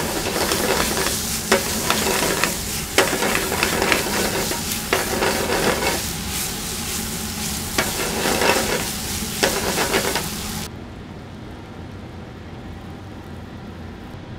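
Food frying and sizzling in a hot pan while a utensil stirs and scrapes it, with irregular scraping strokes. About eleven seconds in the sizzling cuts off abruptly, leaving a quieter steady hum.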